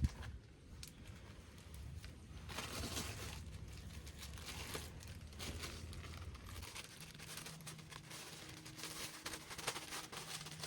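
Rustling and scattered light clicks of things being handled, with a low steady hum coming in about two-thirds of the way through.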